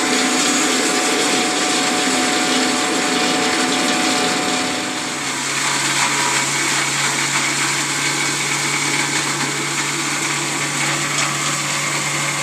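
Multifunction chopper-grinder machine running steadily with a loud whirring mechanical noise. About five seconds in the sound shifts and settles into a steady lower hum.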